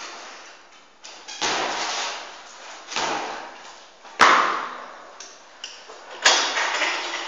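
BMX bike on a hard floor: a few rushing scrapes, then two sharp bangs, the louder about four seconds in and another about six seconds in, each ringing on briefly in an echoing passage.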